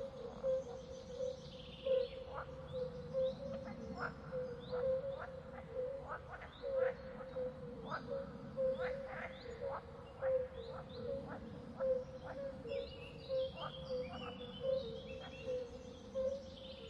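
Horror background ambience: a steady, pulsing low tone under many short rising chirps and high twittering calls, over a low rumble that swells and fades.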